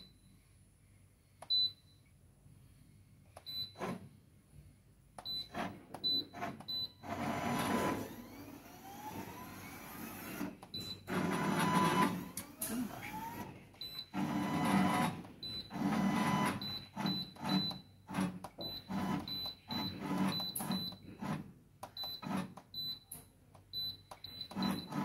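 Servo-driven gantry axis of a motion-control machine moving in several bursts, each with a rubbing friction noise and a rising motor whine as it starts. The friction sound on start-up is a known problem, which the operators wonder may come from running too slowly. Short high beeps recur between and during the moves.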